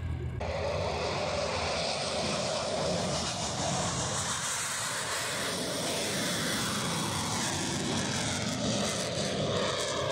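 Military aircraft making a fast, low pass, its engine noise starting abruptly about half a second in and holding loud and rushing, with faint pitch glides sliding through it as it goes by.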